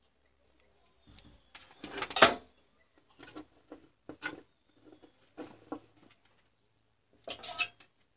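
Cylindrical lithium-ion cells being handled and set down on a workbench: a series of clicks and clatters, loudest about two seconds in, with another cluster near the end.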